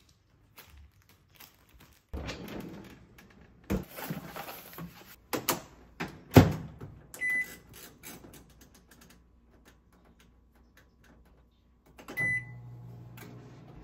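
Microwave oven being loaded and started: handling of its door with a loud clack about six seconds in and a short beep soon after, then, near the end, another beep as it starts and a steady low hum of the oven running.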